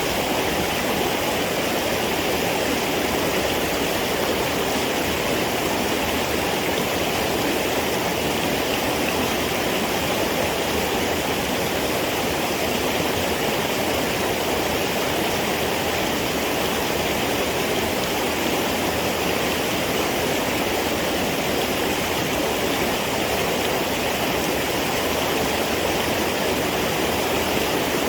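Steady rushing of running water, like a stream flowing, unchanging throughout.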